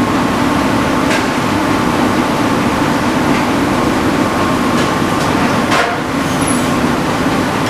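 Gas wok burner running at full flame under an empty wok as it is heated red hot, with a loud, steady rushing noise and the kitchen extraction behind it. Two short knocks come through, one about a second in and one near six seconds.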